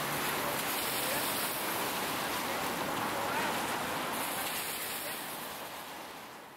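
Steady hiss of busy city street ambience, with faint voices now and then, fading out near the end.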